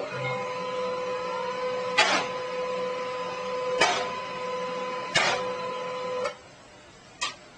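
Desktop printer printing: a steady motor whine broken by three sharp clacks from the paper-feed mechanism. The whine stops about six seconds in, and a single click follows.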